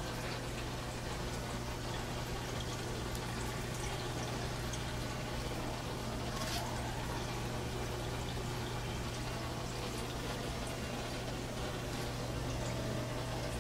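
Aquarium filter running: a steady trickle and splash of water into the tank over a constant low hum, with one brief click midway through.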